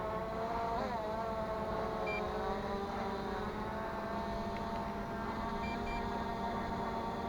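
Brushless quadcopter motors and propellers whining steadily in flight, the pitch briefly dipping and rising about a second in as the drone corrects. A few short high beeps sound around two and six seconds in.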